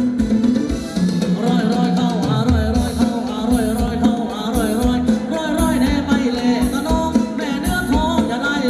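Live Thai ramwong dance band playing an upbeat song: a singer's melody over a steady drum beat and a sustained low bass line.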